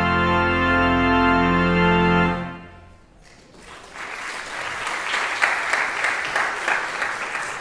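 Pipe organ holding the final chord of the postlude, released about two seconds in and dying away in the room's reverberation. The congregation then breaks into applause, which builds and carries on to the end.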